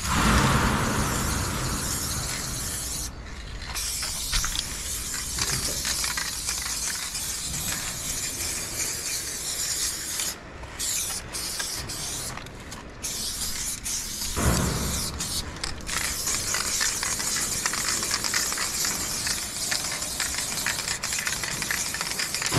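Aerosol spray-paint can hissing steadily as paint is sprayed, cut by a few short breaks between strokes, around 3 seconds in and several times in the middle. Brief low rumbles at the start and about two-thirds of the way through.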